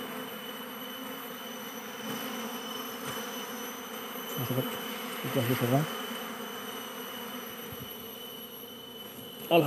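A swarm of Asian honeybees (Apis cerana) buzzing steadily around comb cut from their nest, the colony stirred up and scattering after being smoked.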